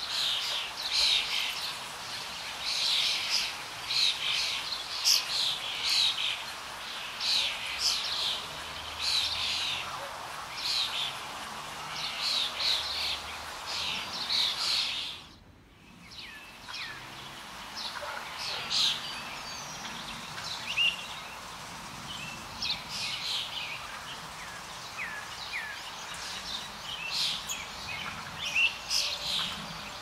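Parrots calling in the trees: many short, shrill calls in quick succession. The sound drops out briefly about halfway, after which the calls are sparser, with a few short whistled notes.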